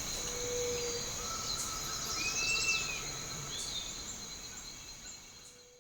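Natural ambience of insects trilling steadily, with a bird giving a few short calls, fading out near the end.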